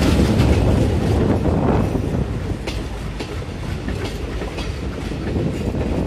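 Passenger coaches rolling past at speed: a heavy rumble of wheels on track that eases a little over the first two seconds, then sharp clickety-clack as the wheels cross rail joints.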